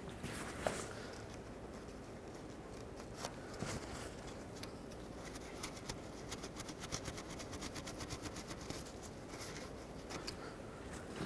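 Faint rubbing with light scratchy ticks as a cloth rag is wiped over a metal axle hub and its lock-ring nut, over a low steady background hiss.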